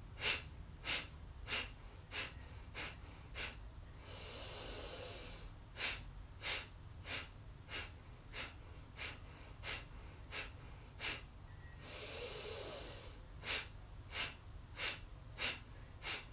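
A woman's rhythmic nasal breathing: a long, soft inhale through the nose, then a run of short, sharp exhalations through the nose, about three every two seconds, each pushed out by pulling the belly in. The cycle of one inhale and about seven forced exhales repeats three times.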